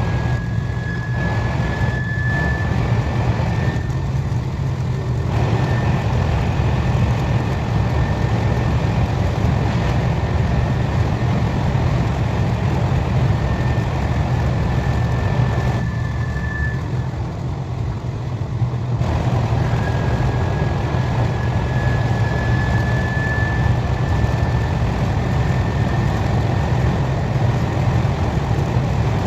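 KTX high-speed train running noise: a steady low rumble with a thin high whine that comes and goes, rising slightly in pitch each time.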